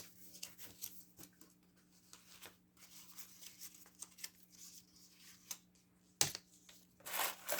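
Sheets of patterned craft paper being handled and slid out of their pack: light rustling and small ticks, with a sharper knock about six seconds in and a louder rustle near the end, over a faint steady hum.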